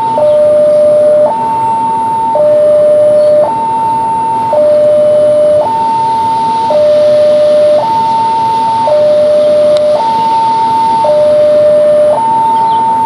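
Railway level-crossing warning alarm warning of an approaching train: an electronic two-tone signal alternating steadily between a low and a higher tone, each held about a second.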